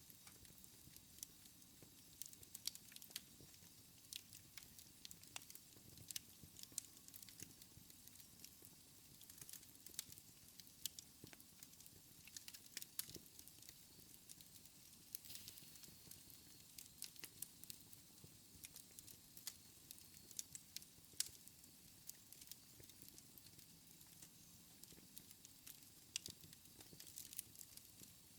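Wood fire in a fireplace crackling softly, with irregular sharp pops and snaps over a faint steady hiss.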